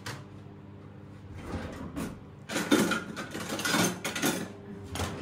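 A kitchen drawer sliding open and metal utensils clattering inside it as it is rummaged through, louder in the second half.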